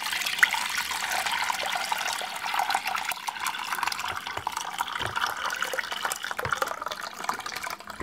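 Blended lemon and orange pulp in water being poured from a plastic bowl into a fine-mesh metal strainer, with steady splashing and trickling as the liquid runs through the mesh into the pot below.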